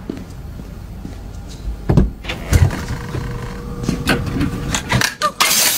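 Knocks and clicks of a glass-door drinks cooler being opened and beer being handled inside it, with a steady hiss starting about five seconds in.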